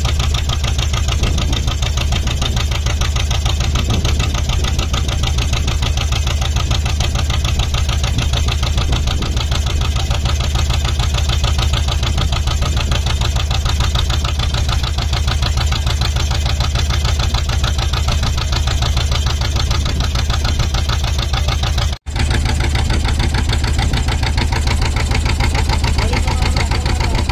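An engine running steadily and loudly at a fast, even beat, with heavy low rumble. It drops out for an instant about 22 seconds in and carries on unchanged.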